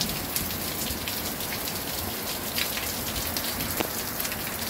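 Heavy rain pouring down steadily in a downpour, with the sharp taps of large drops falling close by, some of them dripping off the roof edge.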